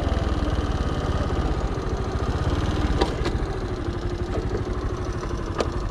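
Honda Little Cub's single-cylinder four-stroke engine, bored up to 88cc, running steadily at low revs and slowly getting quieter. A couple of light clicks come about three seconds in and near the end.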